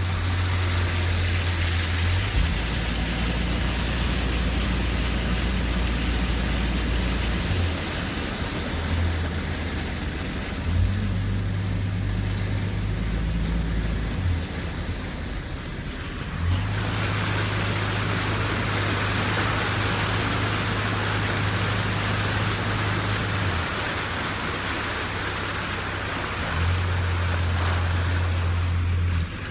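A Jeep driving through floodwater on a road: a steady low engine rumble under an even wash of water noise, which grows louder for several seconds past the middle.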